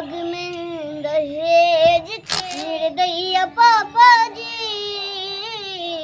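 A young boy singing unaccompanied into a microphone, in long held notes with a wavering pitch, phrase after phrase. About two seconds in, a short rush of noise cuts across the singing.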